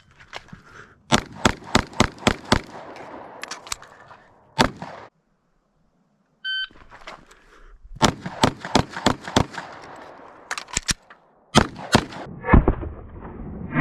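Glock pistol fired in rapid strings of shots, each string started by the electronic beep of a shot timer: one beep right at the start, then a burst of quick shots with a few spaced follow-ups, and a second beep about six and a half seconds in, then another fast string.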